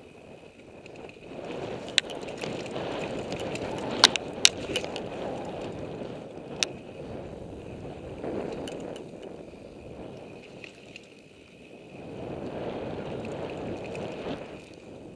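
Mountain bike descending a dirt trail: a rushing noise of tyres rolling over dirt that rises and falls with speed, broken by a few sharp clicks and rattles from the bike over bumps, the loudest two close together about four seconds in.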